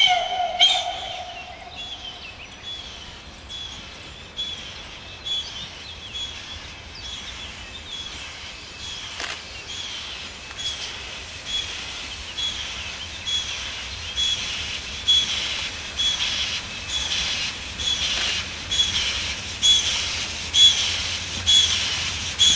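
Steam locomotive approaching: a whistle note dies away in the first second or two, then its exhaust beats, about one a second, grow steadily louder as it draws nearer.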